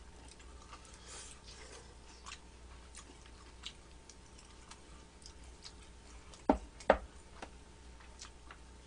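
Quiet eating sounds: faint chewing and light clicks of metal chopsticks against dishes, with two sharper clicks close together about two-thirds of the way through.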